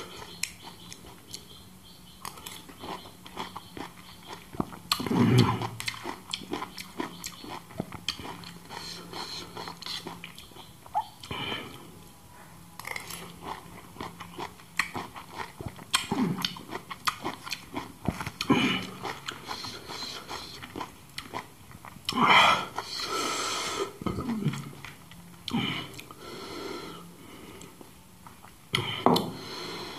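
Close-miked chewing and wet mouth sounds of a person eating spoonfuls of shredded pomelo pulp, with small clicks and scrapes of a spoon against the banana leaf.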